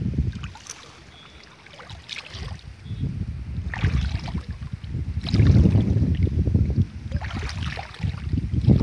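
Wind buffeting the microphone in gusts, a low rumble that drops away about a second in and is strongest about five to six seconds in, with short rustles of leaves and stems brushing close by.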